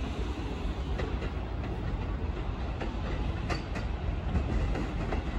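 Electric commuter train approaching along the tracks, a steady low rumble with a few sharp clicks from the wheels and rails, growing slightly louder near the end.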